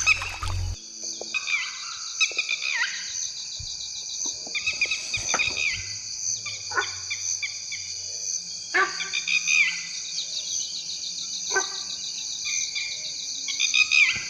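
Steady, high-pitched insect chorus with short chirping calls breaking in every second or two, and a few soft clicks.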